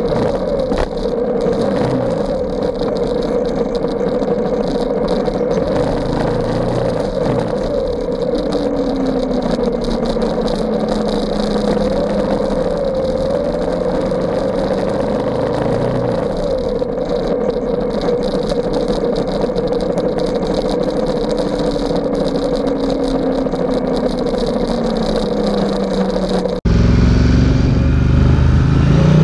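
Ducati XDiavel S's 1262 cc Testastretta L-twin engine running under way with road and wind noise, its pitch slowly falling and rising. About three seconds before the end the sound cuts suddenly to a louder, deeper engine note that climbs in pitch.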